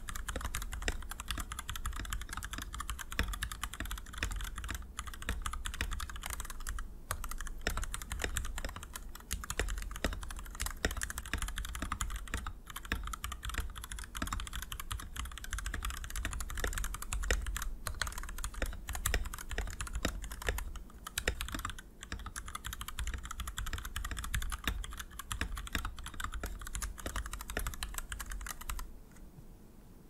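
Fast, continuous typing on a Keychron V1 75% mechanical keyboard with Gateron Milky Yellow linear switches and thick PBT Cherry-profile keycaps, an unmodded board in the upper clack territory. The test runs with the silicone case dampener fitted and with it removed, and the typing stops near the end.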